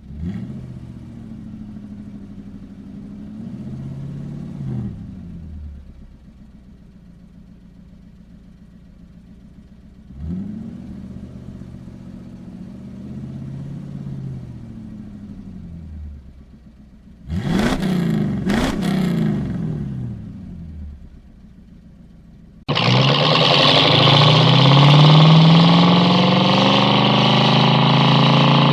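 Ford Mustang engine revving: two slow revs from idle that rise and fall back, then two quick sharp throttle blips. About three-quarters of the way in, a much louder full-throttle run begins, the engine note climbing steadily.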